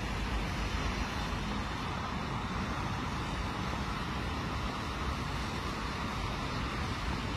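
Steady outdoor hiss of city traffic with an unsteady low rumble of wind on the microphone.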